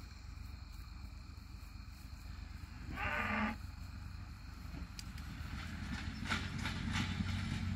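A cow gives one short, low moo about three seconds in. From about five seconds a vehicle engine's low hum slowly grows louder.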